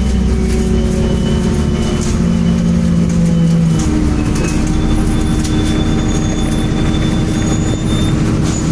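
MAN Enviro 300 single-decker bus running, heard on board: a steady engine and drivetrain drone with whining tones that change pitch a couple of times. Thin high-pitched squeals sit above it.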